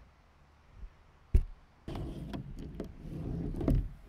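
A single thump as a handheld microphone is set down on a plastic folding table, then rustling and clicking as a plastic water bottle is handled on the tabletop.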